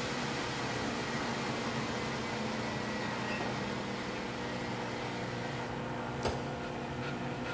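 Hardinge HLV-H toolroom lathe running with its chuck on: a steady hum of motor and spindle drive with several held tones, as the variable-speed drive is turned down to slow speed and the higher hiss fades near the end. A single sharp click about six seconds in.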